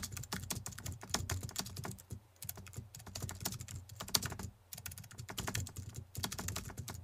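Computer keyboard typing sound effect: rapid key clicks in runs, broken by brief pauses, as text appears letter by letter.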